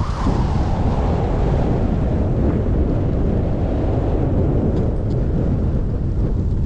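Wind buffeting the microphone of a camera carried by a skier moving downhill: a steady, loud low rumble.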